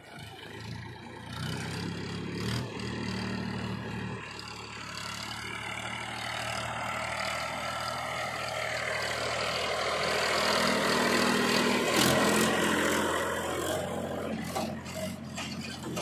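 Powertrac Euro 50 tractor's three-cylinder diesel engine running as it drives past pulling a trailer, growing louder as it nears and easing off about three-quarters of the way through.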